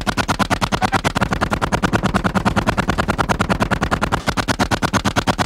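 M2 .50 caliber heavy machine gun on an M1 Abrams tank firing a long automatic burst, the shots coming in a fast, even rhythm, with a brief break about four seconds in.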